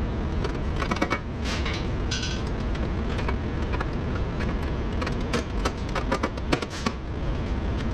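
Irregular sharp clicks and light knocks, bunched about a second in and again between five and seven seconds in, over a steady low hum.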